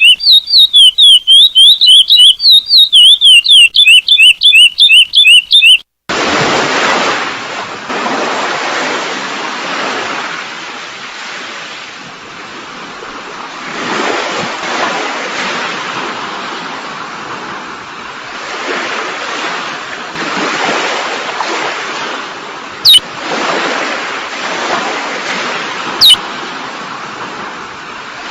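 A curió (chestnut-bellied seed finch) song played from a recording: a fast run of whistled notes, each rising and falling, that cuts off abruptly about six seconds in. Then recorded ocean surf, the waves swelling and ebbing, with three short, high, sharp notes falling in pitch near the end.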